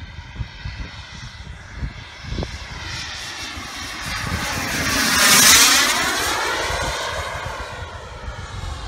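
Turbine engine of a large scale model jet making a fast pass: its whine and rushing hiss build up, are loudest about halfway through, then drop in pitch and fade as it flies away.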